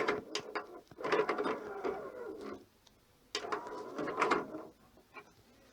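LG DVD player's disc-tray mechanism running, its small motor and gears whirring with clicks as the tray slides out or in, twice.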